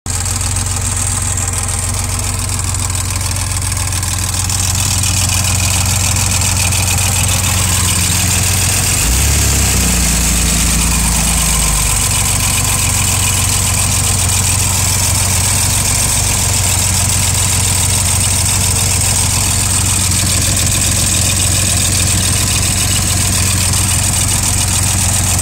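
A 2.8-litre engine idling steadily, with a noise that the owner suspects is lifter tick. The engine note shifts briefly about nine seconds in and settles back about three seconds later.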